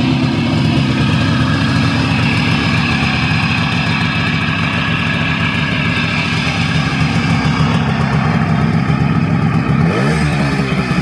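Adler MB250 motorcycle's two-stroke twin engine running at a steady idle, with a brief rise in revs near the end.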